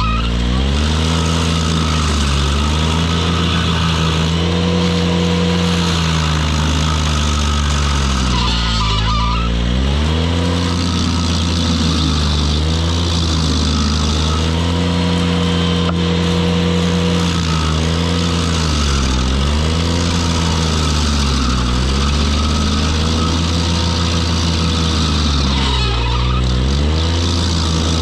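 Ventrac compact tractor engine driving a KC220 stump grinder at high revs. Its pitch sags and recovers several times as the cutter wheel bites into the stump and loads the engine.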